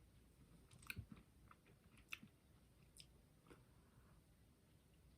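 Faint chewing of a soft fig bar, with a few small, sharp mouth clicks about a second apart.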